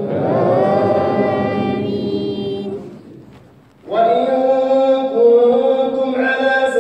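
An imam's male voice chanting Quran recitation in long, drawn-out phrases during tarawih prayer. He breaks off for a breath about three seconds in, then resumes.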